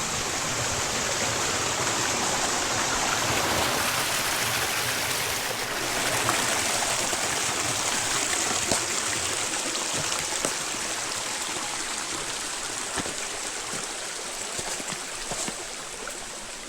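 Creek water running: a steady rushing noise that eases slightly in the second half, with a few faint ticks.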